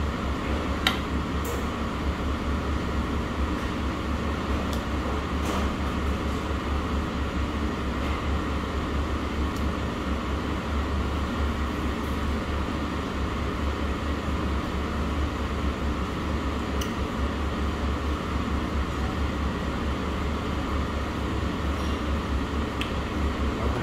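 Steady low hum of restaurant air conditioning, with a few light clinks of a ceramic spoon against a clay hot pot and a small bowl as broth is ladled out.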